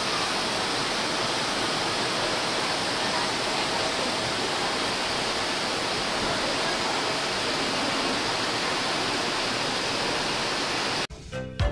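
Steady, even rushing of a river flowing over a stony bed. It cuts off suddenly near the end, and music with a beat starts.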